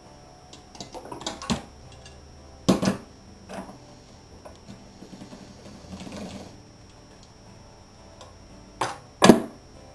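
A razor blade and small tools tapping and knocking on a hard work surface as polymer clay is cut, with faint ticks between them. There are a few sharp knocks, a loud double knock a few seconds in, and two more near the end.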